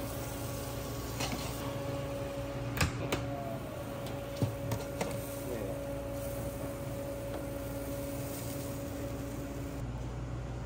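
Steady hum of commercial kitchen equipment with two held pitched tones. A few sharp metallic clicks and taps sound between about one and five seconds in, from metal tongs knocking against a wire rack and sheet pan.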